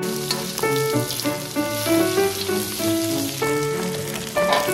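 Food sizzling as it fries in a pan, a steady hiss, under background music with a melody of clear sustained notes.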